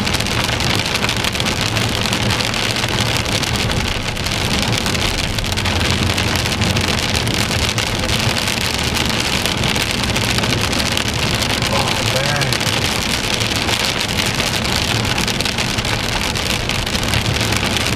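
Steady heavy rain falling on a car, with a low rumble underneath.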